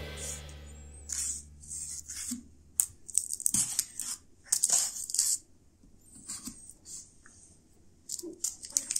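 A wooden toothpick being pushed into and drawn out of the skins of whole air-fryer-baked potatoes to test that they are cooked through: a run of short, irregular scratchy sounds.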